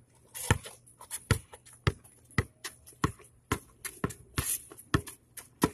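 Basketball dribbled on a paved street: about ten bounces at a steady rate of roughly two a second.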